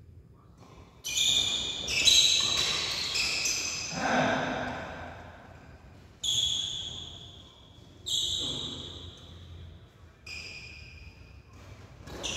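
Badminton rackets striking the shuttlecock in a doubles rally: a sharp hit every second or two, each ringing briefly and fading in a hard-walled sports hall.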